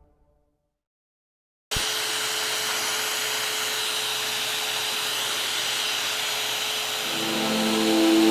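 A power tool running steadily, a level hissing whir with a faint steady hum in it, cutting in abruptly about two seconds in. Music comes in under it near the end.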